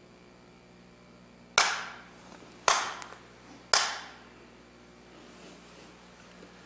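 Jukbi, the split-bamboo clapper, struck three times about a second apart, each sharp clack ringing briefly in the room: the three strokes that open a Seon dharma session.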